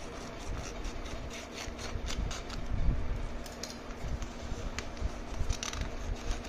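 Sheets of folded paper rustling and crinkling as a homemade paper pouch is handled and unfolded, with scattered low handling bumps.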